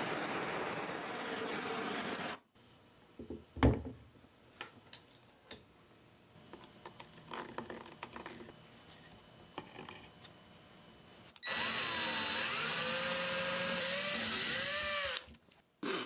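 A propane torch hisses steadily for about two seconds and stops. Then quiet taps and one sharp knock, and from about 11 seconds in a power drill bores a 1/4-inch hole into torch-darkened Baltic birch plywood for about four seconds, its whine rising and falling as the speed changes.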